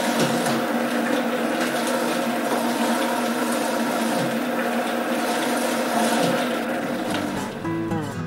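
Bianco Tune Pro high-speed blender running steadily on a low manual speed, chopping soup vegetables coarsely while the tamper pushes them down onto the blades. Near the end its pitch falls as the motor slows.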